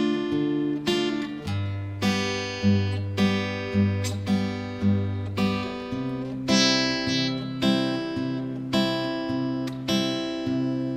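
Acoustic guitar with a capo, played fingerstyle: the thumb plucks a bass note, then the index, middle and ring fingers pluck the top three strings together, in a steady, even rhythm. The chord progression runs through C, D minor and G, with bass changes about a second and a half in and again about six seconds in.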